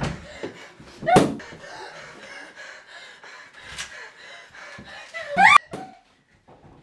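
A woman gasps and cries out in fear twice, each cry rising in pitch. A sharp crack comes right on the end of the second cry, and then it goes quiet.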